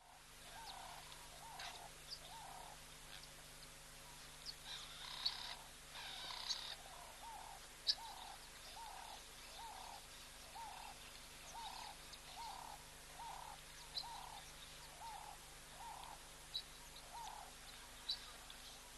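Wild birds calling: one bird repeats a short, arched note about once every three-quarters of a second, stopping near the end. Scattered sharp, high chirps come from other birds, and there is a brief rustly burst about a third of the way in.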